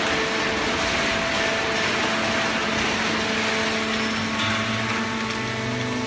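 Horizontal hydraulic cardboard baler running: a steady mechanical hum and hiss with several steady tones through it, and a deeper hum joining about four and a half seconds in.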